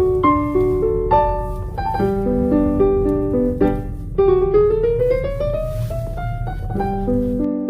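Background piano music: a melody of struck notes over a steady low hum, with one slow rising glide in pitch about four seconds in.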